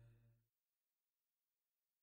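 The last of the film's music, a held chord, fading out and ending about half a second in, followed by complete silence.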